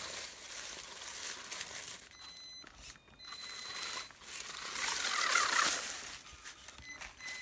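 Electric RC crawler's motor and speed controller whining in short steady tones that start and stop as it drives, over crunching and rustling of dry leaf litter and dirt.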